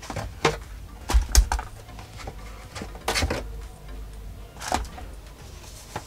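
Cardboard packaging being handled as a box is opened: scattered knocks and rustles, with a couple of low thumps about a second and a half in.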